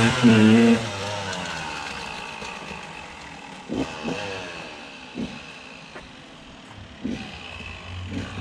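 2001 KTM 200 EXC single-cylinder two-stroke dirt bike engine revving as it pulls away. It is loud for the first moment, then fades into the distance, with several short rising blips of throttle along the way.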